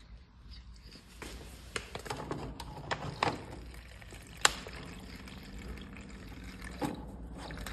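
Water running from a bottled-water cooler's tap into a plastic shake pouch, filling it, starting about a second in. A few sharp clicks and knocks stand out over the flow.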